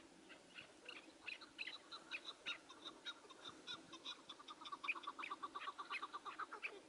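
Chukar partridge calling: a run of short, repeated notes that speeds up into a fast, even chatter in the second half.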